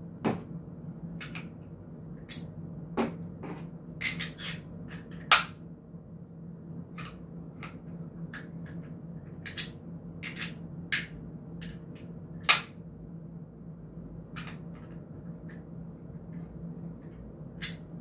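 Sharp clicks and snaps of YC Onion Nut quick-release camera mount parts being handled and fitted together by hand, at irregular intervals, two of them louder than the rest. A steady low hum lies underneath.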